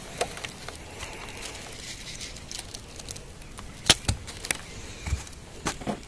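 Close handling noises: scattered light clicks and knocks over a faint rustle, with the sharpest knock about four seconds in and a few more near the end.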